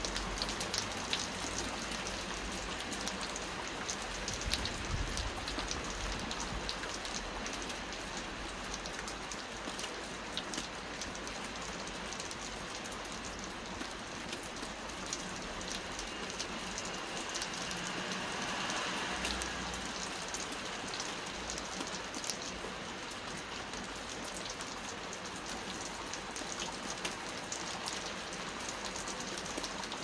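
Steady rain falling on wet pavement: a dense, even hiss with many separate drops ticking through it.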